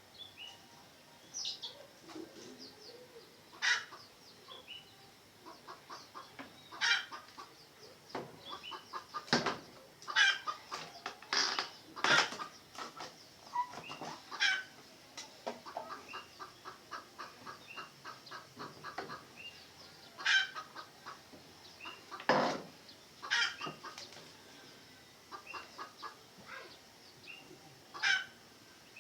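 Red junglefowl clucking and calling: many short sharp calls and several quick runs of rapid clucks, about ten a second. A few louder sharp sounds stand out, the loudest about 22 seconds in.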